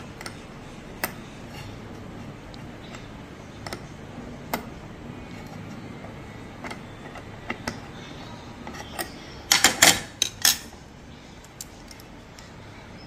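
A 3 mm Allen key and an 11 mm open-end wrench clicking against an airgun regulator's adjusting screw as it is tightened, light scattered ticks of metal on metal. About ten seconds in comes a brief clatter of louder clinks as the wrench is laid down on a ceramic plate.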